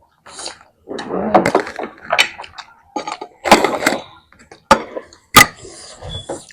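Close-up eating sounds: irregular bursts of chewing and crunching, with a few sharp clicks or taps, the sharpest about five seconds in.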